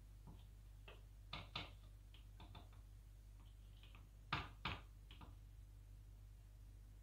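Wooden spatula knocking and scraping against a stainless steel pot while pasta is tossed in its sauce: a few soft clicks and two pairs of sharper knocks, the louder pair about four and a half seconds in, over a faint steady hum.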